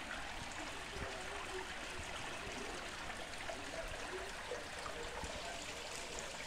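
Steady rain with muddy rainwater runoff streaming across a bare dirt yard, an even hiss.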